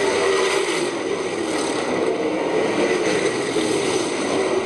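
Several sprint car engines running hard together at race speed, a loud steady din with engine notes wavering up and down as the cars pass.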